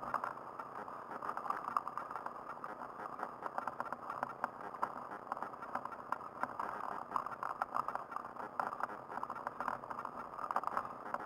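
Handbike in motion, heard through its own mounted camera: a steady muffled rush of riding noise with frequent small clicks and rattles.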